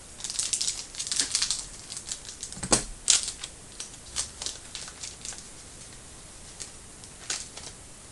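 Trading card packs being torn open by hand: bursts of wrapper crinkling and tearing in the first two seconds, two sharp snaps about three seconds in, then scattered small crackles.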